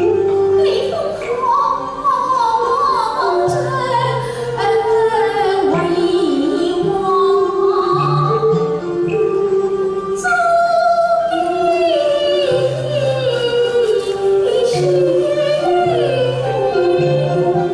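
Cantonese opera: a sung melody that glides and bends from note to note, over the opera ensemble's accompaniment.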